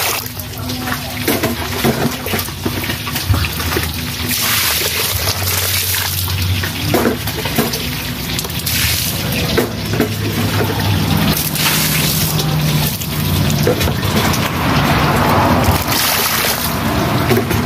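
Water pouring and splashing into a plastic basin of live eels, in repeated gushes with quieter trickling between them.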